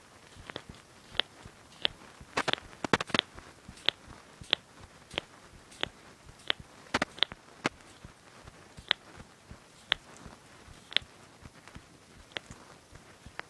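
Knuckles cracking: a long series of sharp single pops at irregular intervals, with a quick cluster of several pops about two and a half to three seconds in.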